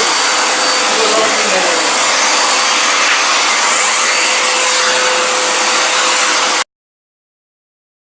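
Eureka Forbes Xforce vacuum cleaner running loud and steady with a constant whine, cutting off instantly about two-thirds of the way in, followed by silence.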